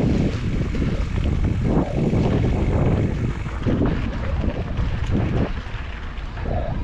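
Wind buffeting the camera microphone while riding a mountain bike over a rough, rocky trail, an uneven low rumble with scattered rattles and clicks from the bike.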